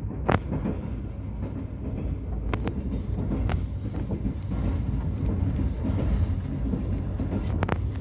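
Passenger train's steady low rumble heard from inside the carriage, with a few sharp clicks scattered through it.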